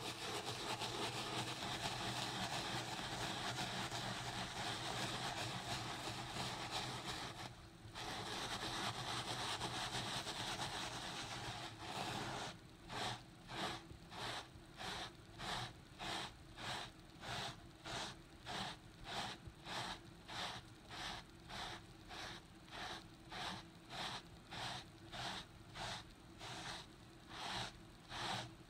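Small stiff plastic bristle brush scrubbing a carpet rug through foamy cleaner. Rapid continuous scrubbing, broken briefly about eight seconds in, gives way about twelve seconds in to slower back-and-forth strokes, about two a second.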